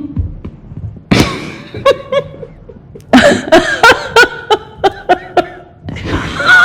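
A woman laughing in three bouts of rapid, repeated 'ha' syllables, about three a second, with short breaks between them.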